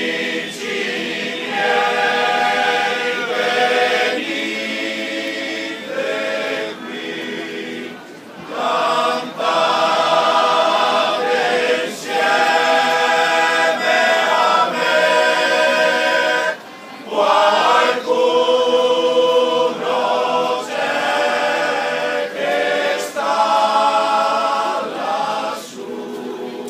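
A choir singing, phrase by phrase, with brief breaths between phrases about a third and two thirds of the way through.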